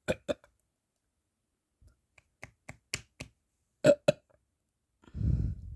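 A run of sharp clicks, the loudest two about four seconds in, then a low, rough burp lasting about a second near the end.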